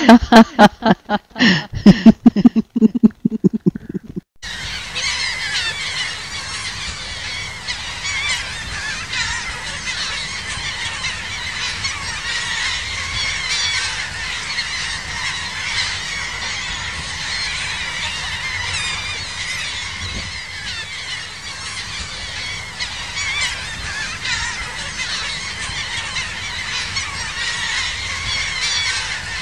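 A large mixed flock of black skimmers and shorebirds calling, a dense, steady chorus of many overlapping calls. It sets in about four seconds in, right after the last notes of a sung song cut off.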